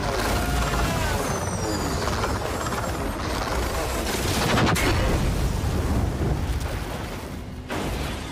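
Dense action-film fight sound effects over a steady low rumble, with short falling whines near the start and one sharp impact a little past halfway.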